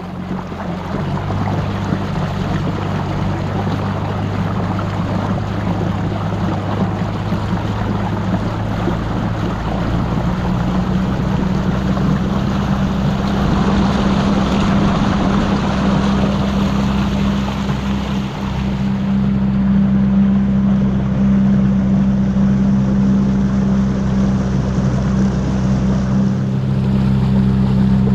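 Outboard motor of a small boat running steadily under way, with water rushing past the hull. The engine note shifts slightly about ten seconds in.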